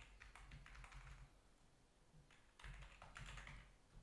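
Faint typing on a computer keyboard: a few scattered keystrokes.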